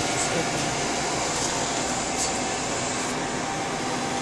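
Steady whir of cooling fans in a rack of network switches and patch panels, an even rushing noise with a faint steady tone running through it.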